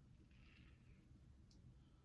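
Near silence: room tone, with a faint brief scrape about half a second in and a tiny click near the end.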